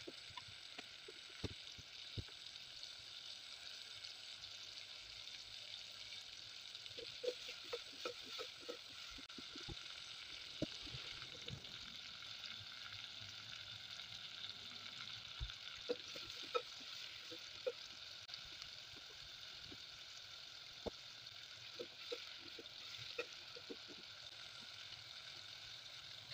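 Tomato masala frying in oil in a pot: a steady sizzle with many small scattered pops and crackles, and the spatula knocking against the pot while stirring near the start.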